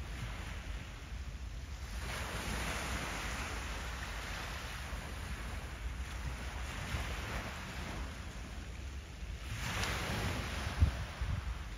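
Small harbour waves washing against the shore, swelling three times a few seconds apart, over a steady low rumble. A brief low thump comes near the end.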